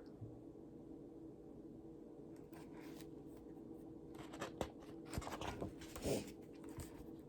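Faint rustling and soft clicks of a picture book's paper pages being handled and turned, in two short spells, over a low steady hum.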